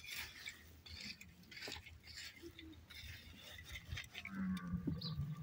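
Plastic rake scraping camel dung pellets over sand in a series of short scratchy strokes. Near the end a low droning sound about a second long is heard over it.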